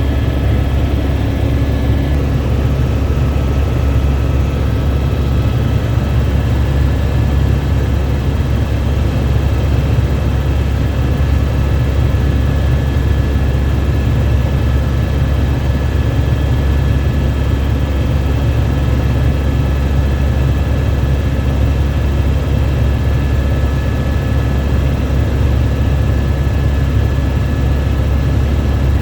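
Helicopter heard from inside the cabin in flight: a steady loud drone of rotor and engine, with a thin high whine of the turbine over it.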